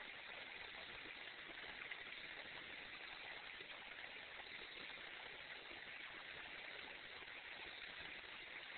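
Faint, steady rush of moving water.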